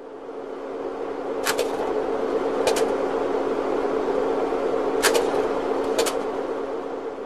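Sound-effect bed for an animated title sequence: a noisy drone over a steady low hum, swelling up and then easing off near the end, cut by four sharp clicks in two pairs.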